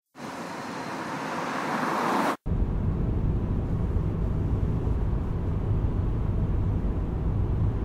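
A Pontiac Vibe approaching along a paved road, its tyre and engine noise growing louder for about two seconds. After a sudden cut, there is the steady low rumble of road noise inside the car's cabin as it drives.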